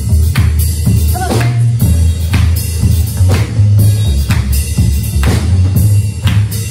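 Band music with drum kit, bass and guitar keeping a steady beat, drum hits about once a second; a voice briefly sings over it.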